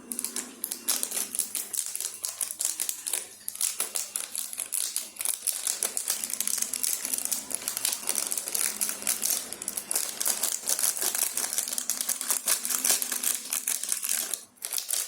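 Scissors cutting open plastic packaging, with a dense run of crinkling and clicking rustle that pauses briefly near the end.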